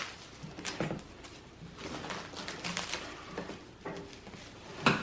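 Protective plastic film being peeled off a new headlight housing, crinkling and rustling in scattered bursts, with a sharper crackle near the end.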